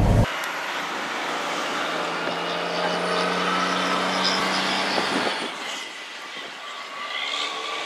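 Outdoor vehicle noise: a steady hiss and hum of passing traffic with a few faint steady tones, easing off about six seconds in.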